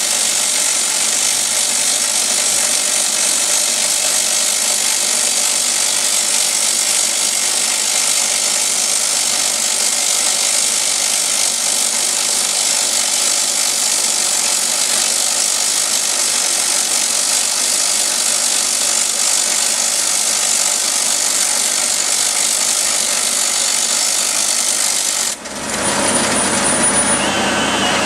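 Drillcom RD32 rock drill boring a 70 mm hole into hard granite with a button bit: a loud, steady, harsh drilling noise. Near the end it cuts off abruptly, leaving a different steady machine noise.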